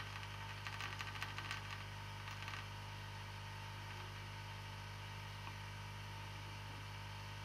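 Steady low hum with a faint hiss of air, typical of a hot air rework station's built-in air pump running. A patter of faint small clicks comes during the first two and a half seconds, then only the steady hum remains.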